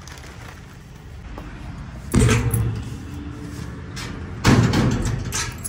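Two heavy bangs about two and a half seconds apart, each dying away over about a second, over a steady low rumble.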